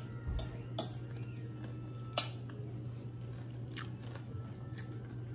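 Someone eating salad out of a bowl: a fork clinking against the bowl and crunchy chewing, heard as a handful of short, sharp sounds, the loudest about two seconds in. A steady low hum runs underneath.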